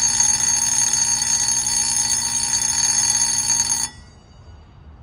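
Electric school bell ringing continuously, then stopping abruptly about four seconds in, its high ring dying away briefly.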